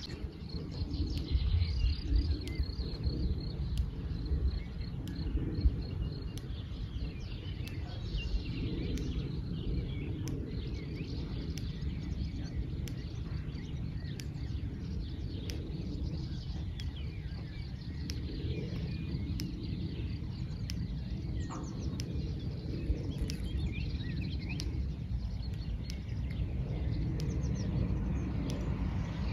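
Countryside ambience: small birds chirping and singing, with a fast run of repeated high notes in the first few seconds, over a steady low rumble.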